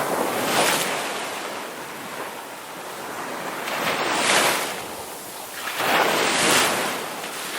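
Sea waves breaking on a beach: a steady wash of surf that swells three times as waves break and run back.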